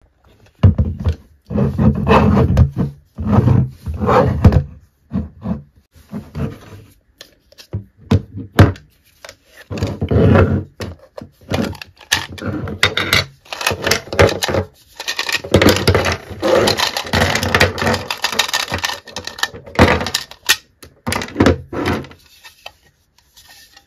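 Hollow plastic Mrs. Potato Head toy being handled and taken apart: irregular clicks, knocks and scraping of plastic parts against each other and the tabletop, with a busier stretch of rubbing and clatter in the second half.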